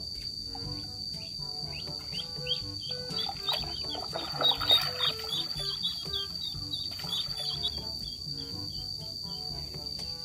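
Light background music of short plucked notes over a steady high insect drone. In the middle comes a loud run of high chirps with a brief rush of splashing water.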